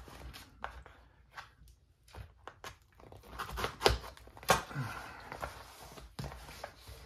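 A package being opened by hand: tape or packaging tearing and paper or plastic rustling, with scattered clicks and taps.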